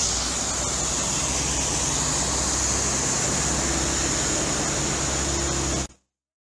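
Vehicle engines running as a 4x4 and a small Inokom light truck drive through floodwater, with a steady hiss of water spraying from their wheels. The sound cuts off abruptly about six seconds in.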